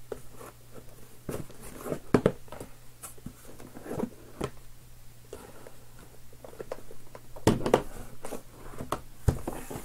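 Cardboard boxes being pulled out of a cardboard shipping case: irregular knocks, scrapes and rustles, with a cluster of sharper knocks about seven and a half seconds in.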